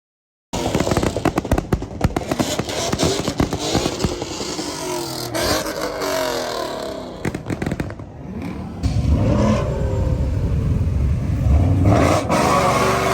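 A car engine being revved hard, with rapid crackling exhaust pops and its pitch sweeping up and down. From about nine seconds in it settles into a loud, deep, sustained engine rumble.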